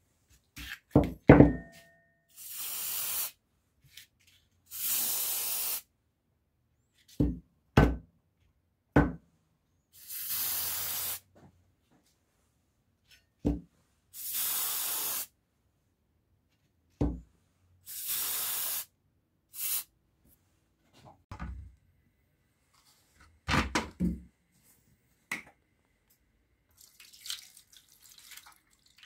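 Aerosol spray paint can hissing in about five separate bursts of roughly a second each, with sharp knocks and clicks between them. Near the end, water poured from a plastic bottle splashes into a metal tray.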